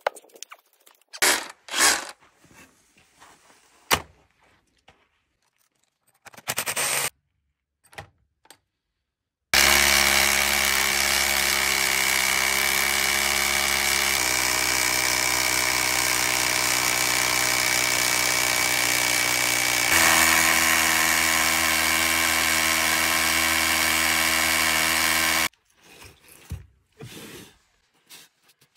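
Cordless drill boring holes into a granite block to split it, running steadily for about sixteen seconds with its pitch changing abruptly twice. Before it there are a few scattered knocks, and after it a couple more.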